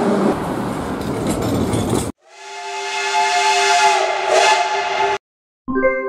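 A metro train rumbling into a station. It cuts to a P36 steam locomotive's whistle sounding a chord of several steady tones over hissing steam for about three seconds. An electronic jingle with keyboard notes starts near the end.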